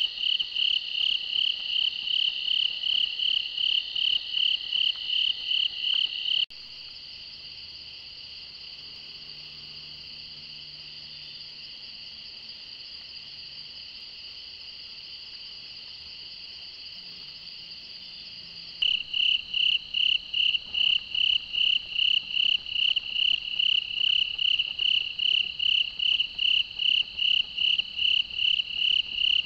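Chorus of night-singing insects: a loud pulsing call, about three pulses a second, over a steady higher trill. About six seconds in it drops to a quieter, steady trill, and the loud pulsing returns after about twelve seconds.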